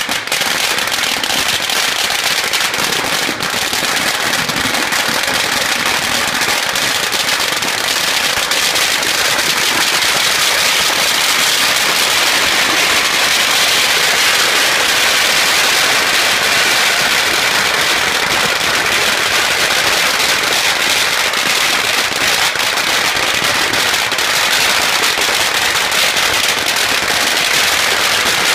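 Long strings of red Chinese firecrackers going off in one unbroken, rapid crackle of loud bangs, without a pause.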